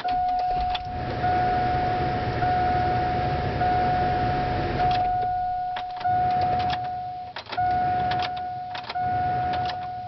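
The truck's ignition warning chime sounds as one steady tone, broken by short gaps about every second, while the key is worked in the newly installed ignition lock cylinder. Sharp clicks and jingles come from the key and key ring, and a low rumble sits under the first half.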